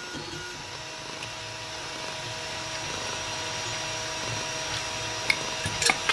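Steady hum of a small machine, with a few faint steady tones and a couple of light clicks near the end.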